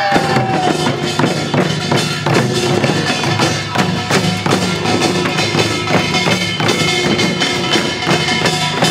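Korean farmers' band percussion playing a busy, steady rhythm, with hand drums struck over ringing metal tones.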